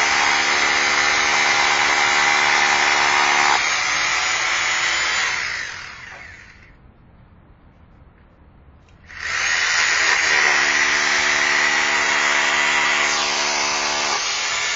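Power drill boring into a ceiling overhead: a steady motor whine with grinding noise, in two long runs of about six seconds each with a pause of about three seconds between. The pitch shifts a little partway through each run.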